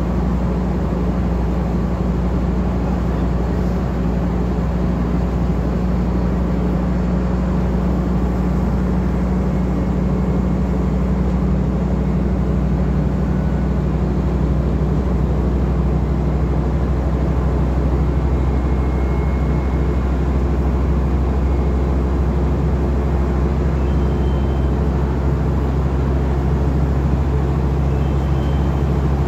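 Scania N230UD double-decker bus's five-cylinder diesel engine running steadily, a constant low drone heard from inside the upper deck.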